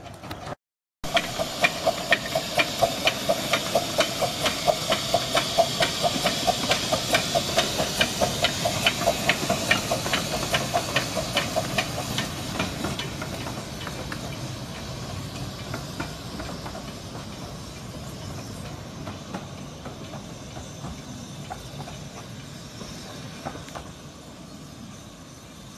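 Small 15-inch-gauge steam locomotive working a train: a steady beat of exhaust chuffs, about three to four a second, over a hiss of steam. The chuffs fade over the second half, leaving a softer hiss and rumble.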